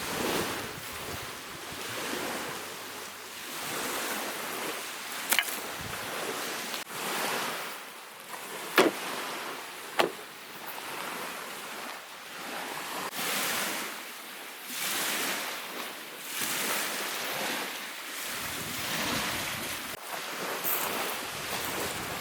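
Lake waves washing onto the shore in swells about every two seconds, with wind on the microphone. Three sharp cracks stand out, the loudest two about a second apart near the middle.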